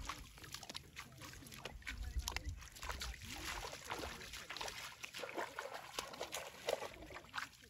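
Irregular splashing and sloshing of shallow water and mud in a flooded rice paddy as a person wades through it and plants rice seedlings by hand.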